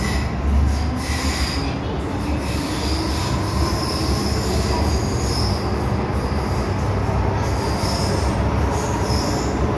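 MTR Island Line M-Train running through a tunnel, heard from inside the car: a steady low rumble from the wheels and running gear, with high wheel squeal on the rails coming and going several times.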